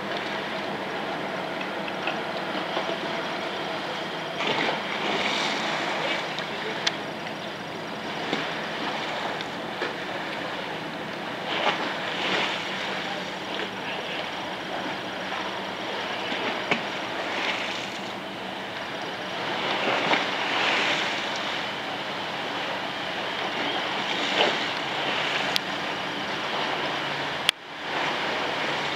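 Steady drone of passing boats' diesel engines, a police launch and a car ferry, over water washing and wind, swelling now and then. A single sharp click near the end.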